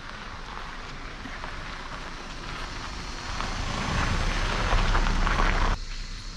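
Suzuki hatchback driving slowly over a dirt road, its tyres crackling on the grit. The sound grows louder as the car comes up close, then cuts off suddenly near the end.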